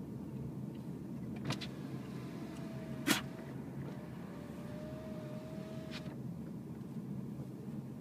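Renault ZOE electric car driving slowly, heard from inside the cabin: a steady low rumble of tyres on the road with a faint wavering whine, and three short clicks, the sharpest about three seconds in.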